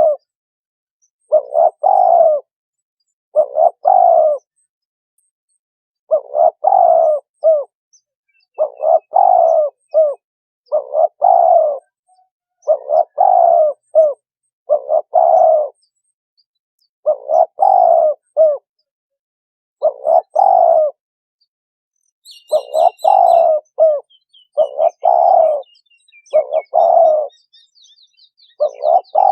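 Spotted dove cooing: a short phrase of low coos repeated about every two seconds. Faint high chirps from a small bird join in during the last quarter.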